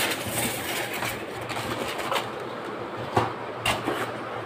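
Polystyrene foam packing insert rubbing and scraping against a cardboard box as it is handled and pulled out, with a couple of sharp knocks a little past halfway through.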